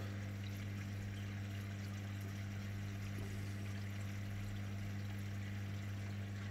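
Steady hum of a reef aquarium's water pumps, with the even wash of circulating water.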